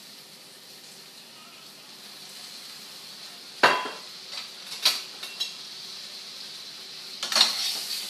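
Lemon and white-wine sauce with lump crabmeat sizzling in a stainless skillet on a gas burner, a steady hiss that grows a little louder over the first few seconds. A few sharp clinks of kitchenware cut through it, the loudest about three and a half seconds in and others around five and seven seconds.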